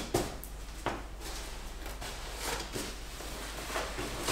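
A dog stepping onto a padded pet bed: a couple of light knocks from paws and claws, with soft rustling of the cushion.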